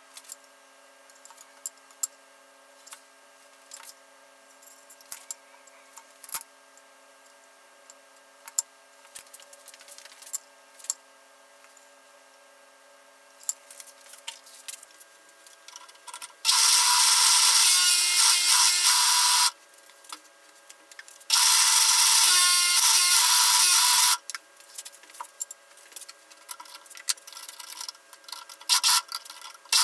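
A power tool runs in two loud bursts of about three seconds each, with a pause of about two seconds between them. Scattered clicks and knocks of tool handling come before and after.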